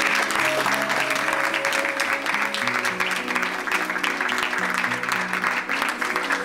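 An audience applauding, steady clapping throughout, with soft instrumental music of held notes playing underneath.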